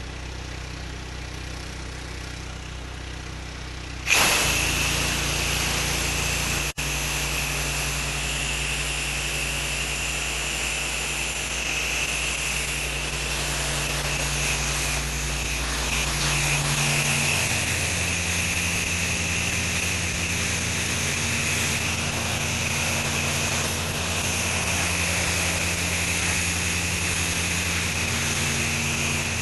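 Pressure-washing rig's engine running steadily. About four seconds in, a loud hissing water spray starts and keeps going, and the engine note changes about halfway through.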